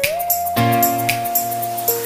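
Background music: a gentle instrumental track with a held, sliding melody line over a steady beat of light high ticks.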